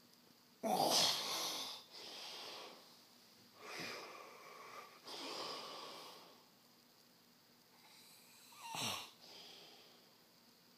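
Loud snoring: a run of noisy breaths in and out. The loudest starts abruptly about a second in, and a short, sharp breath comes near the end.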